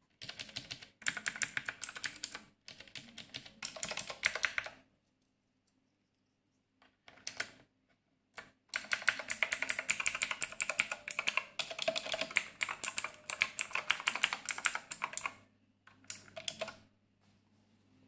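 Fast typing on a Redragon Ida one-handed mechanical keyboard with clicky Outemu Blue switches: dense runs of keystroke clicks separated by short pauses, the longest run lasting about six seconds.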